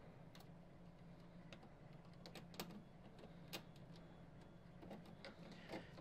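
Faint, irregular small clicks and ticks: a screwdriver and a circuit board knocking against a TV's sheet-metal chassis as the replacement main board is fitted and screwed to its mounting posts.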